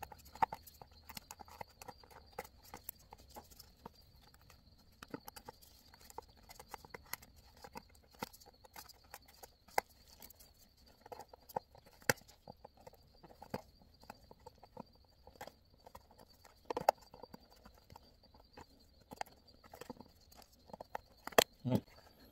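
Diagonal cutters snipping off the melted plastic emblem studs on the back of a steering-wheel airbag cover one by one: scattered sharp clicks and snaps at irregular intervals, with the plastic cover being handled in between.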